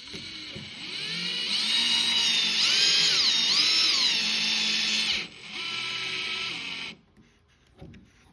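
Power drill driving a waxed screw into hard old wood, the motor's whine rising and falling in pitch with the trigger. It stops briefly about five seconds in, then runs again for under two seconds.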